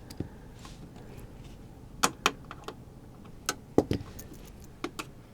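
Scattered sharp clicks and light knocks, about nine or ten, of the plastic case of an APC UPS 500 battery backup being handled and worked at by hand to get at its battery.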